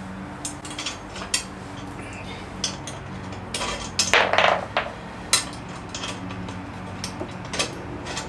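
Steel parts and bolts of an Extreme Max motorcycle wheel chock clinking and knocking as they are fitted together by hand, with a louder, longer scrape about four seconds in. A faint steady hum runs underneath.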